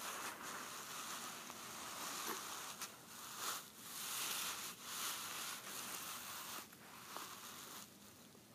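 Rustling, scuffing noise right at the microphone, coming in uneven stretches, from the cat's fur and face pressing against the phone.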